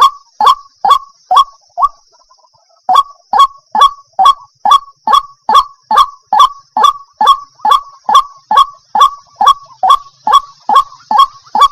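Waterhen calling: a long series of short, harsh, honking notes at about two a second. The series breaks off for about a second about two seconds in, then resumes at the same pace, over a faint steady high hiss.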